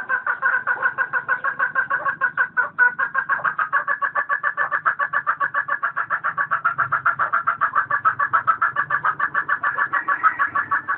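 A hen clucking in a fast, unbroken series of about seven clucks a second: the cackling of a laying hen.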